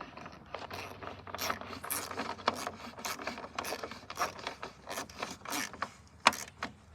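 Mini ratchet clicking as it tightens a screw, an uneven series of sharp pawl clicks with one louder click near the end.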